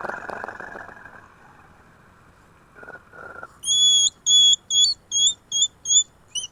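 An animal's call: a run of seven short, high whistled notes in quick succession, about two or three a second, each with a slight upturn at its end. A fainter, fading noisy sound comes first.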